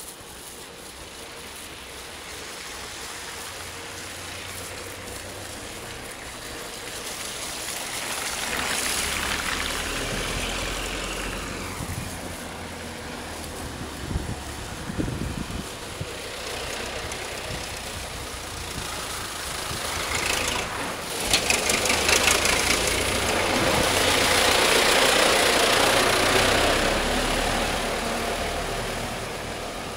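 Street traffic on a wet, slushy road: a car hissing past about a third of the way in, then a diesel wheeled tractor with a front brush going by close, its engine rumble and the noise loudest in the last third.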